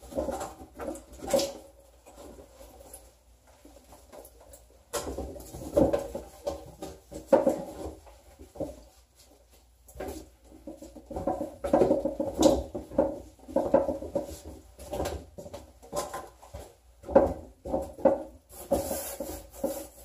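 Gloved hands scrubbing and rubbing a hard furniture surface in a shower stall, in irregular runs of short strokes with pauses between them. A brief hiss comes near the end.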